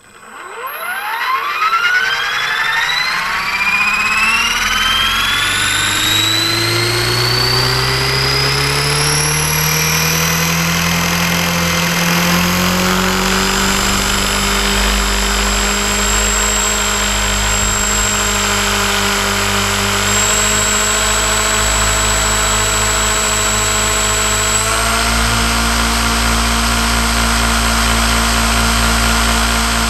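Radio-controlled model aircraft's motor, heard from on board, spinning up from rest: a whine that rises smoothly in pitch over about ten seconds and then holds steady. About 25 seconds in it steps up in pitch again, at the takeoff run.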